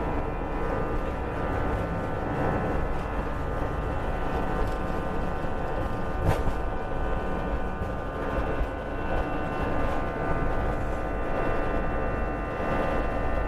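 Airbus A320's CFM56 turbofan engines running steadily during the takeoff climb: a dense rumble with a steady multi-toned whine. There is one short sharp click about six seconds in.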